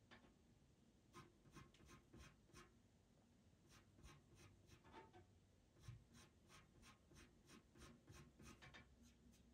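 Faint scratching of a pastel pencil on PastelMat paper: runs of short, quick strokes, several a second, with brief pauses between the runs.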